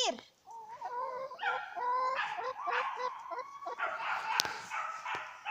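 An animal's high, drawn-out whining calls mixed with many short yelps.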